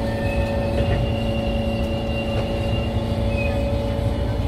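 SMRT Kawasaki C151 metro train running on the track: a steady low rumble with a constant hum running through it.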